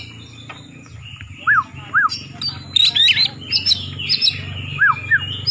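Oriental magpie-robin (kacer poci) singing: clear whistled notes that rise and fall, with a fast run of high chips and trills in the middle.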